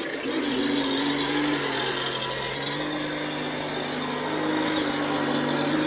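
Electric motor and drivetrain of an RC truck whining steadily as it drives, the pitch stepping up slightly about two and a half seconds in as it speeds up.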